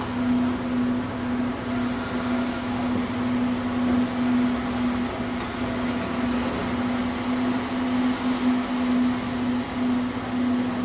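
Car ferry's engines running with a steady low drone and a faint regular pulse as the ferry comes in to the landing ramp.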